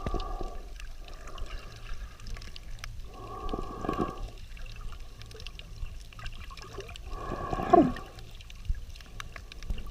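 Underwater breathing: a gurgling, hissing rush of exhaled bubbles about every four seconds, with a low steady rumble of water between breaths.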